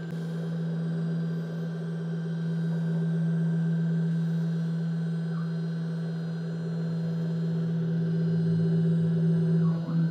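CNC router spindle running steadily, its 8 mm ball-nose cutter milling MDF: a steady motor hum with a higher whine, slowly getting louder and softer as the cut changes, with a brief dip just before the end.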